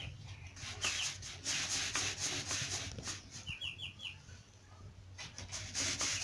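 Chick feed rustling in a galvanized tube feeder as it is topped up, in two spells of grainy hiss. Chicks give a few short high peeps, once about a second in and in a quick run of three or four a little past the middle.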